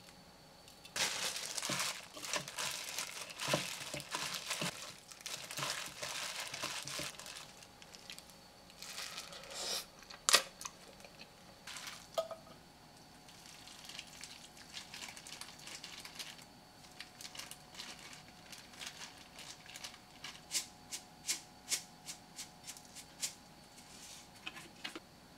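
Gloved hands mixing sauced noodles in a mixing bowl, with several seconds of wet crinkling and rustling and a single sharp knock against the bowl partway through. Near the end, a plastic seasoning shaker is shaken over a plate in a quick series of sharp ticks.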